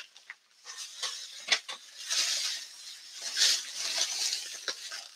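Plastic packaging rustling and crinkling as small craft items are handled, in irregular bursts with a few light clicks.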